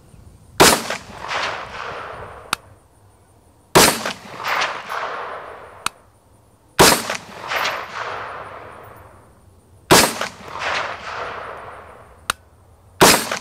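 Five rifle shots from an AR-15 chambered in 25-45 Sharps, fired slowly and deliberately about three seconds apart while shooting a group. Each sharp report is followed by an echo that rolls away over a second or two.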